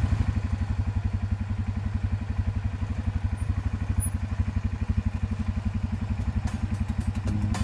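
ATV engine idling with a steady, rapid low putter.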